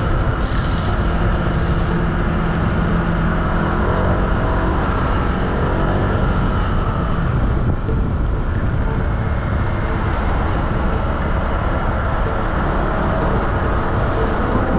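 Motorcycle engine running on the move, its pitch bending up and down a few seconds in, over a steady low rumble.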